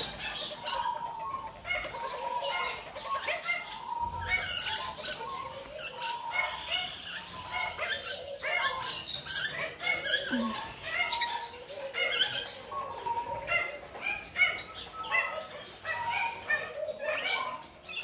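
Aviary birds calling: a dense chorus of short, repeated calls overlapping one another without a break.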